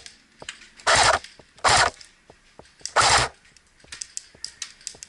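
Airsoft electric gun firing three short full-auto bursts, each about a third of a second long, then fainter scattered snaps of shots near the end.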